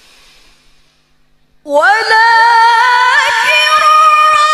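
A woman reciting the Quran in melodic tilawah style into a microphone. A faint hiss comes first, then about a second and a half in she begins a long, loud held note with wavering ornaments.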